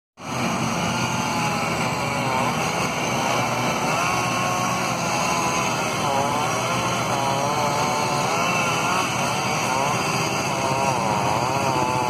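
Two-stroke chainsaw cutting tree limbs, its engine pitch rising and falling over and over as the chain loads up in the wood and frees again.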